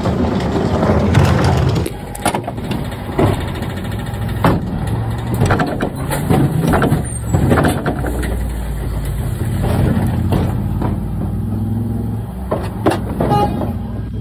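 Scania P410 refuse lorry's diesel engine running steadily, with repeated sharp knocks and clanks of bins and waste in its body. A low rumble gets louder about eight seconds in.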